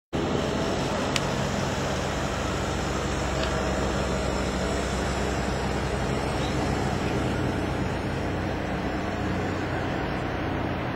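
Steady low engine hum under a constant wash of noise, unchanging throughout.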